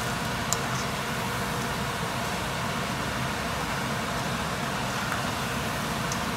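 Hot oil sizzling and bubbling steadily around strips of sal sev dough deep-frying in a pan, with a faint click or two.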